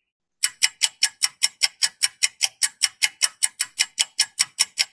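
Clock-ticking countdown sound effect: a quick, even run of sharp ticks, about five a second, starting about half a second in.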